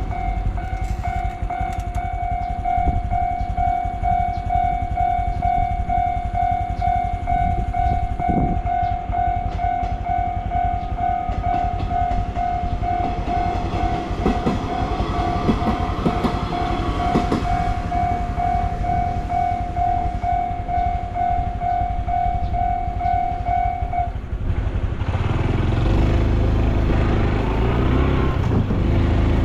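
Japanese railway level-crossing warning bell ringing in a steady repeated pulse while a train passes over the crossing. The bell stops about 24 seconds in, and the Honda Super Cub C125's engine then pulls away louder.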